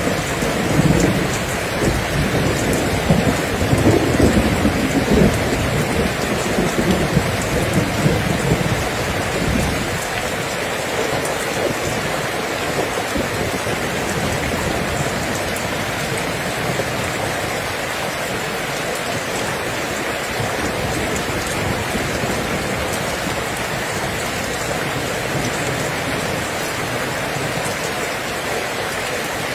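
Steady rain falling, with a low rolling rumble of thunder that dies away about ten seconds in, leaving only the even hiss of the rain.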